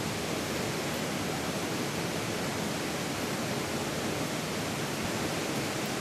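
Mountain stream rushing between boulders: a steady, even rush of water.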